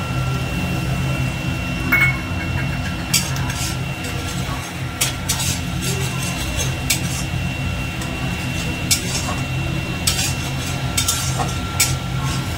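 Flat spatula scraping and tapping against a metal kadai while stirring, in short irregular clinks and scrapes over a steady low hum.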